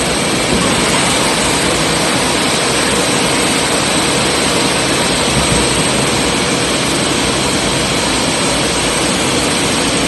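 Steady, loud machinery noise with a high constant whine from the hydraulic power driving the Boeing 747's landing gear, as a main gear swings down out of its bay.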